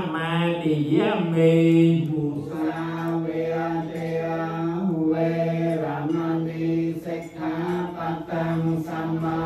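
Theravada Buddhist paritta chant in Pali by male voices: a steady, low recitation held on a few sustained pitches, rising and falling only slowly.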